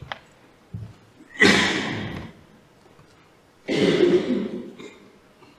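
A person coughing twice, about two seconds apart, each cough trailing off.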